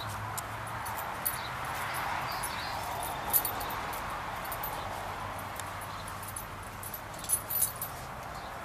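A Great Dane walking: a few sharp clicks and jingles from its claws and collar over a steady background noise, with a small cluster of clicks near the end.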